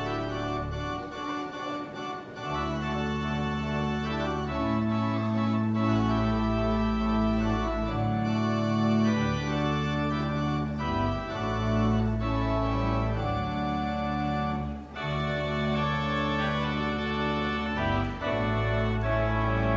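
Church organ playing a slow piece in held chords over long, low bass notes, the chords changing every second or two, with a brief break about fifteen seconds in.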